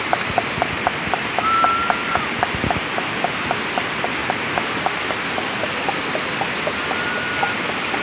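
A steady rush of river water, with a night creature calling in short ticks about four times a second. A few brief whistle-like notes come over it, once near the start and again a little before the end.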